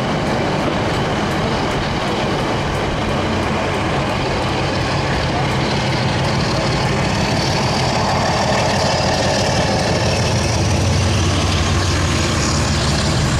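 Class 47 diesel locomotive's Sulzer twin-bank V12 engine pulling a train away under power, heard from an open carriage window, with a steady engine note and a high whine that rises in pitch as the train gathers speed.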